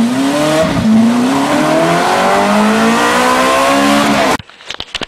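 Car engine sound effect accelerating hard: the pitch dips briefly about a second in, then climbs steadily over a hiss until it cuts off suddenly about four and a half seconds in.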